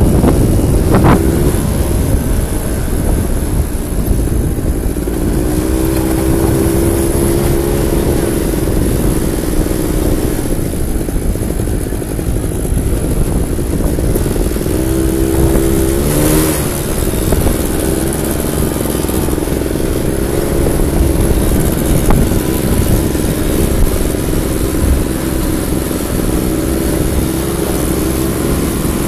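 Quad bike (ATV) engines running and revving on sand, their note coming and going and rising in a rev about halfway through, over a steady loud rumble.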